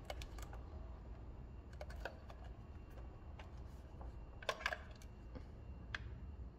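Light clicks and taps of a plastic Sony Dream Machine clock radio being turned over in the hands. A cluster of sharper clicks comes about four and a half seconds in, over a low steady hum.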